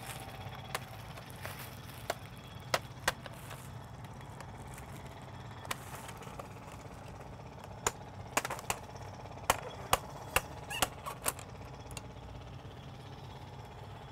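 Plastic laptop screen bezel being pried off: scattered sharp clicks and snaps as its clips let go, a few at first and then a quick cluster in the second half, over a steady low hum.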